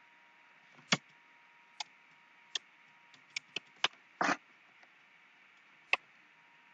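A string of about eight separate sharp computer mouse clicks, irregularly spaced, with a slightly longer double click a little past the middle. They are heard over a faint steady hiss while the computer is switched from one program to a slideshow and its slides are advanced.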